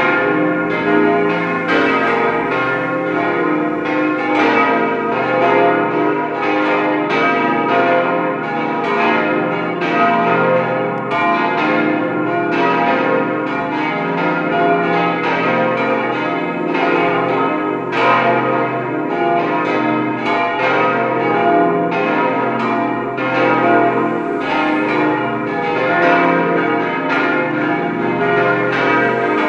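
Full peal of five cast-steel church bells swinging together, cast in 1954 by Bochumer Verein and tuned to B♭, C, E♭, F and A♭. Their strokes fall several times a second in no fixed order, and the tones ring on between strokes.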